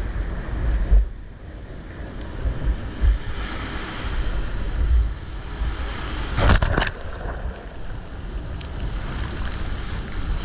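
Wind buffeting the microphone over choppy water, with waves washing and one sharp splash or knock about two-thirds of the way through.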